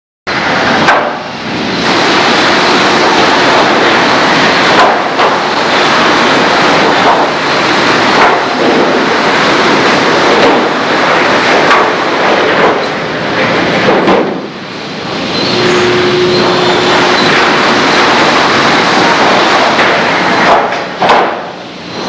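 Loud, steady sawmill machinery noise, with frequent knocks and bangs throughout and a short steady tone about two-thirds of the way through.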